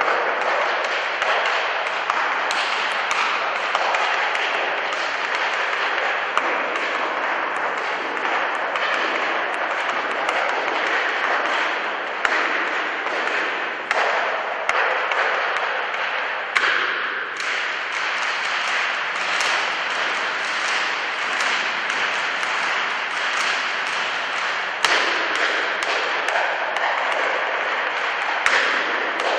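Sustained audience applause, with sharp taps and knocks of dancers' shoes on the stage floor scattered over it, more of them in the second half.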